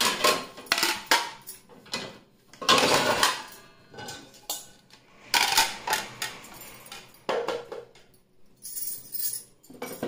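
Plastic and ceramic plates clattering against one another and the dishwasher's wire rack as they are lifted out, in several separate bursts of clinks and knocks.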